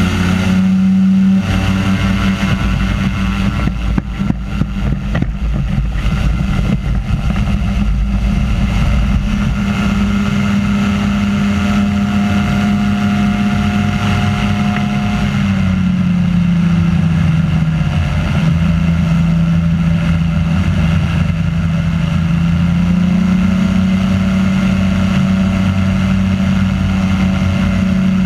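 Microlight trike's engine and pusher propeller at high power during the takeoff roll and climb-out, a loud steady drone that is choppy and fluttering for the first several seconds. The pitch drops a little just past the middle as power eases, then rises again about two-thirds of the way through.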